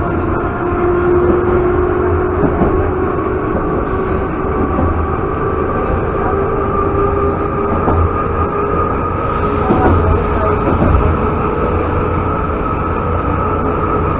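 Moscow Metro Ezh3 train running at speed on an open stretch, heard from inside the car. The wheels rumble steadily on the rails under a motor whine that rises slowly in pitch, with a few sharp clicks from the wheels.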